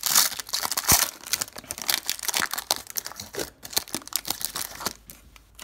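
Foil wrapper of a Donruss Optic football card pack being torn open and crinkled as it is peeled off the cards, the crackling dying away about four seconds in.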